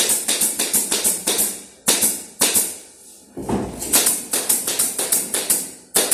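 Pneumatic nail gun firing a rapid string of sharp shots, several a second, fastening boards to wooden framing, with short pauses about two and three and a half seconds in.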